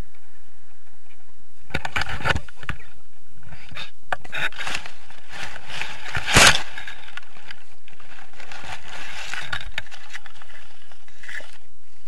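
Grass and weeds brushing and scraping against the camera as a tandem paraglider touches down and settles into the field, in irregular bursts, with the loudest scrape about six seconds in.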